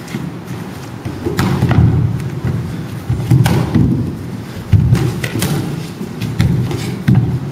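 Thuds of a kickboxing bout: gloved punches and kicks landing, and feet stepping on a wooden floor, with several sharp hits at uneven intervals.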